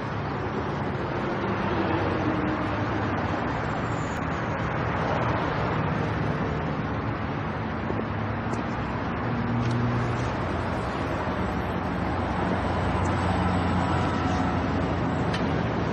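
Steady road traffic noise: motor vehicles running past along the road.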